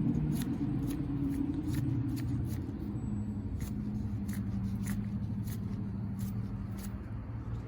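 Light irregular clicks and rattles of small metal parts being handled, over a steady low hum.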